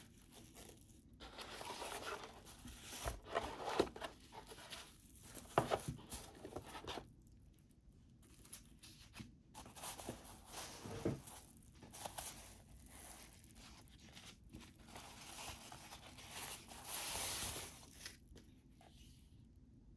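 Thin white foam packing wrap rustling and crinkling in irregular bursts as hands pull it off a digital photo frame, with a few sharper taps and a longer, louder rustle near the end.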